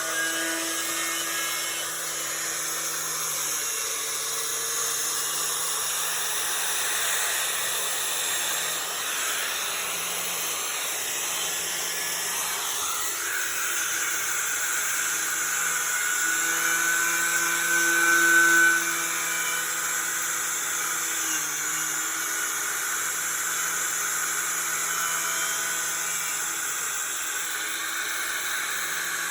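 Milwaukee 11-amp 4½-inch angle grinder running steadily with a twisted-knot wire wheel, scrubbing paint and rust off a metal door, with a hiss of wire scraping over the motor's whine. The pitch sags briefly a couple of times under load, and it gets louder for a moment past the middle.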